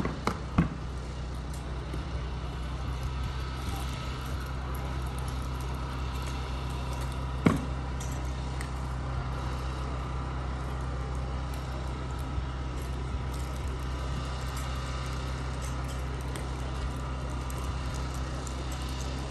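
Steady low outdoor hum with a few sharp knocks, two near the start and the loudest about seven and a half seconds in, from drill rifles being handled and struck during an exhibition rifle drill routine.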